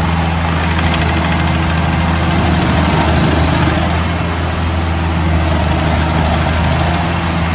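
Engine of a heavy forestry machine running steadily at a constant speed, a low, even drone.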